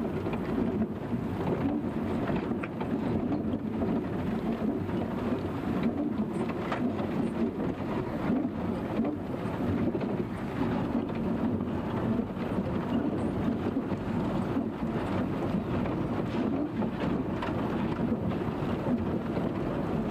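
Vehicle driving on a rough dirt road, heard from inside the cab: a steady engine and road rumble with scattered knocks and rattles.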